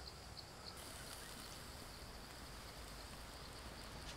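Faint outdoor ambience: an insect chirping in an even, high rhythm about three times a second, joined about a second in by a soft steady hiss.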